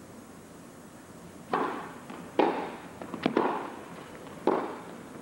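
A tennis rally: about five sharp pops of the ball off racquet strings and off the court, with a short echo after each in a large indoor arena. They come a second or so apart after a quiet first second and a half.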